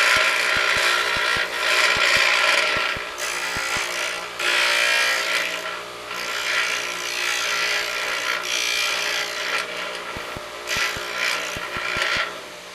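Pedestal grinder wheel grinding a high-speed steel lathe threading tool held in a sliding fixture, a harsh rasping that swells and eases in several passes over the grinder motor's steady hum.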